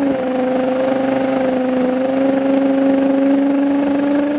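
Motorcycle engine held at steady high revs in a burnout, the rear tyre spinning on the tarmac and smoking to heat it before a run.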